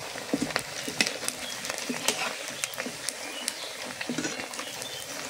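Rice vadas deep-frying in hot oil: a steady sizzle with frequent sharp clicks and pops.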